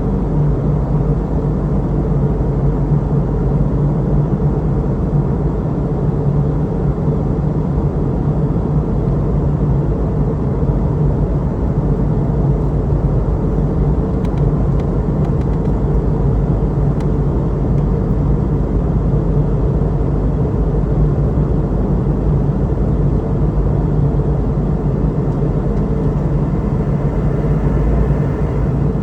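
Steady cabin noise of a Boeing 717-200 in flight: a constant loud drone from its two rear-mounted Rolls-Royce BR715 turbofans and the airflow, with a low hum running under it.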